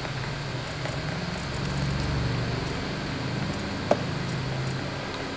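Steady low hum and hiss of background noise, with a single short click about four seconds in.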